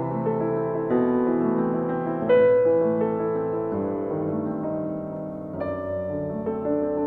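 Background piano music: slow sustained chords and notes.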